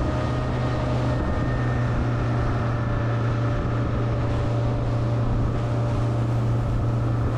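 Motorboat under way, its engine running at a steady pitch with a constant low hum, over the rush of wind and water.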